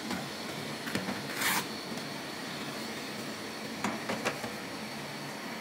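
Steady fan hum of a cryo body-contouring machine running, with a few brief handling clicks and a short rasping rustle about a second and a half in as a treatment handle and its strap are taken off the leg.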